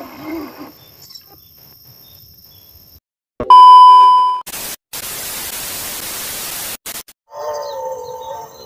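A loud steady electronic beep lasting about a second, then a TV-static hiss for about two and a half seconds that cuts off suddenly: a sound effect for a logo transition.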